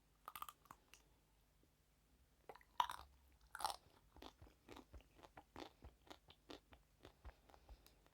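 Close-miked biting and crunchy chewing of a hard sweet: two loud cracking bites about three seconds in, then rapid crisp crunches, several a second.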